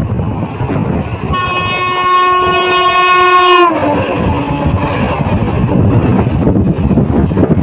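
Indian Railways passenger train sounding a long horn blast as it passes close by, the pitch dropping as it goes past. The coaches then rush past with a loud rumble and wheel clatter.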